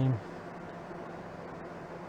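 Steady, even background hiss with no distinct events, right after the last word of speech.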